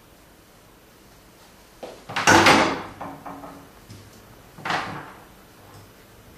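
Metal CNC machine parts being handled and set on the aluminum table frame: a loud, longer clunk and scrape about two seconds in, and a shorter one near five seconds.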